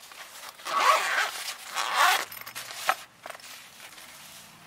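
Zipper on a canvas multimeter carry case being pulled open in two long strokes, about a second in and about two seconds in, followed by a couple of light clicks as the case is handled.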